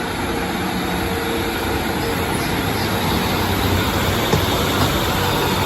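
Diesel multiple-unit train running through the platform with a steady engine hum under continuous rumble and wheel noise, and a couple of faint clicks a little after the middle.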